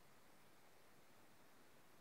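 Near silence: faint, steady room tone and hiss.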